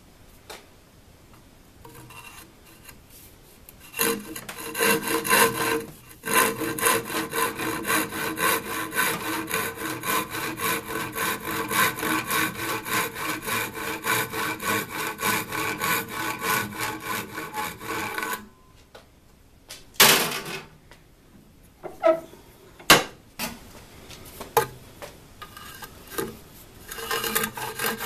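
Handsaw cutting half-inch plywood held in a bench vise: steady, even back-and-forth strokes for about fifteen seconds, which stop, then a few sharp knocks, and the sawing starts again near the end.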